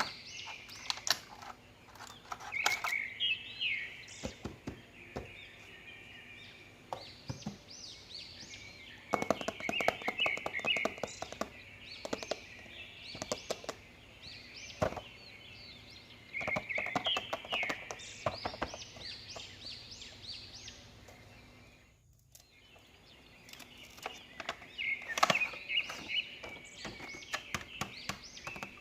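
Small birds chirping in repeated bursts of quick high calls, with scattered sharp clicks and knocks among them.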